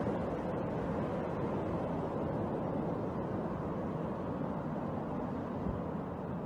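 A distant cargo plane's engines running steadily as it rolls out after landing on an ice runway, heard as a broad, even noise that slowly fades.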